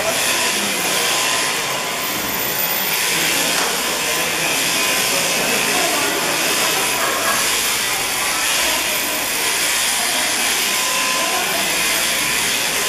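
Overhead-driven sheep shearing handpiece running steadily as it cuts through the fleece, an unbroken high hissing whir.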